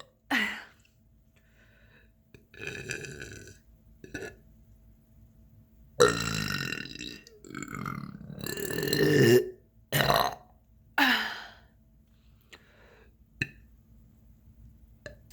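A woman's deliberate air burps, made from swallowed air rather than a carbonated drink: about six separate belches with pauses between, the longest and loudest in the middle. A couple of faint clicks follow near the end.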